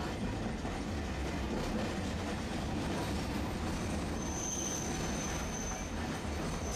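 Tosa Electric Railway streetcar running along street track, heard from inside the cab: a steady rumble from the running gear and wheels on the rails. About four seconds in a thin, high-pitched squeal joins it and holds for roughly three seconds.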